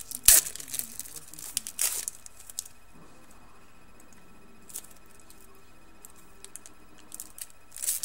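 Crinkling and tearing of a hockey card pack's wrapper being opened, in a burst of loud crackles over the first two seconds. A few soft clicks of cards being handled follow.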